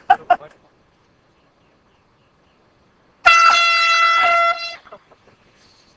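A handheld air horn blasts once, a loud steady blare lasting about one and a half seconds, starting about three seconds in.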